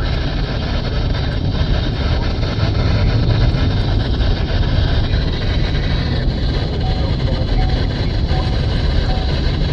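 NOAA weather radio receiver putting out a steady, loud static hiss: the signal is weak and poorly received.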